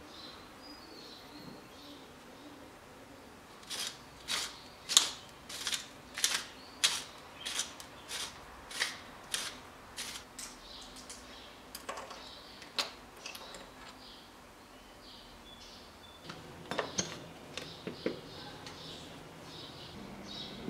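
Seasoning shaken from a shaker over raw chicken strips in a glass bowl: about a dozen short, sharp shakes, about two a second, then a couple of single clicks and light handling of a plastic-lidded container near the end.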